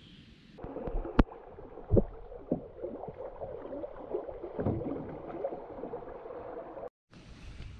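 River water gurgling and splashing against a kayak's hull as it runs through choppy current, with a few sharp knocks, the loudest about a second and two seconds in.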